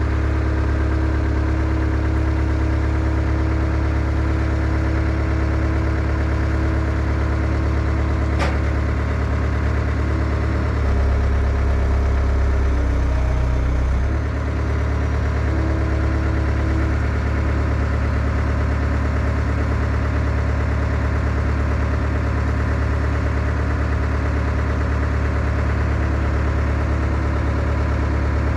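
Skid steer engine running steadily, with a brief change in its low note about a third of the way in and a single short click before that.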